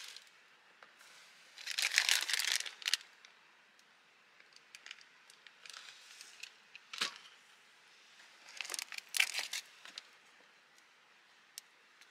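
Rustling and crinkling in two bursts, about two seconds in and again near nine seconds, with one sharp click about seven seconds in and a few small ticks between.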